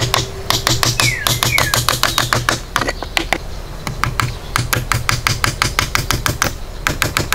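Rapid hammer blows from the poll of a hatchet driving nails into wooden boards, several strikes a second in quick runs with brief pauses about three and six and a half seconds in.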